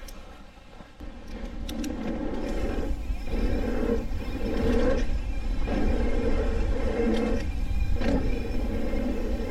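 Wind rushing over the camera microphone and tyre noise of a Trek Fuel EX 7 mountain bike riding a dirt jump line, swelling and easing in surges. There are a few sharp clicks about two seconds in.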